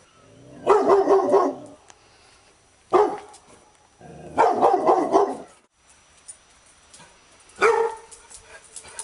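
Labrador retriever barking in four bursts: two short single barks and two longer runs of barking, with short pauses between them.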